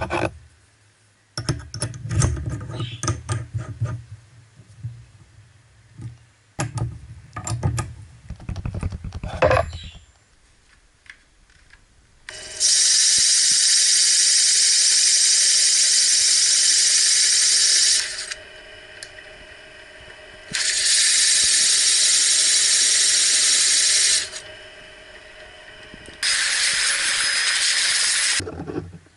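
Metal clicks and knocks as a Forstner bit is handled and fitted into a drill press chuck. Then a machine runs with a loud, steady whirring hiss in three spells of about five, four and two seconds, with a lower hum between them, and cuts off near the end: a drill press boring into MDF while a vacuum hose draws off the chips.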